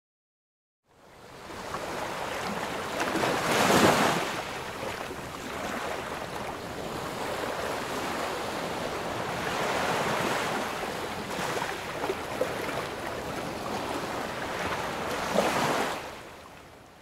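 Ocean surf washing in, with a louder wave breaking about three seconds in and another near the end; it fades in after a moment of silence and fades out before the end.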